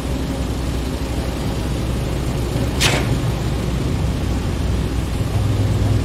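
Construction-site machinery: a steady low engine rumble, with a short, sharp burst of noise about three seconds in. The engine note grows stronger near the end.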